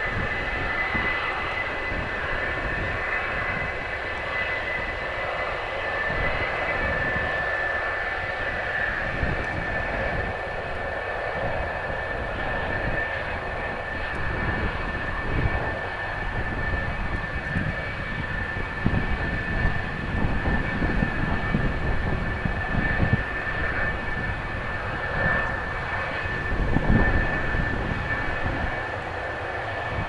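F-4EJ Kai Phantom II's twin J79 turbojet engines running at taxi power: a steady high-pitched whine over a fluctuating jet rumble.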